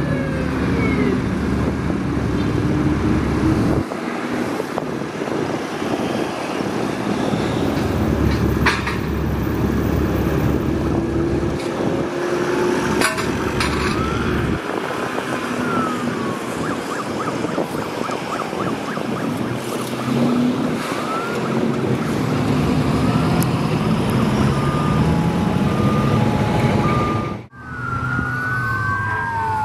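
Road traffic at an intersection: engines running and vehicles passing, with a deeper engine rumble for a few seconds near the middle. Near the end the sound cuts out for a moment, then an emergency vehicle's siren wails, rising and falling.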